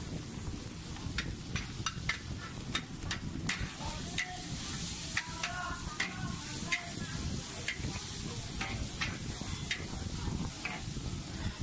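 Metal spatula scraping and clacking against a wok as char koay teow is stir-fried, in sharp irregular strokes about one to two a second, with the frying sizzle over a steady low rumble.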